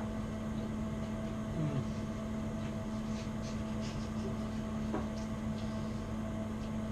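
Steady low machine hum with room noise, and a few faint clicks.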